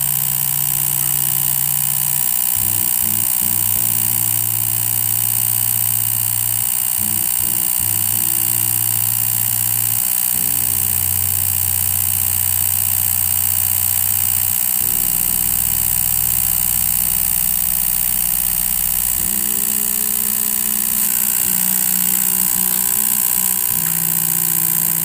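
Homemade pulse motor, its drive coil switched by a reed switch as the magnet rotor spins, running with a steady hum. The pitch of the hum jumps to a new level several times, about every few seconds, over a faint high whine.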